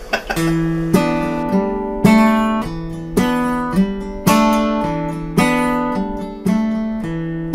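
Acoustic guitar strummed in a steady rhythm, a strong ringing chord about once a second with lighter strums in between: the introduction to a song before the singing comes in.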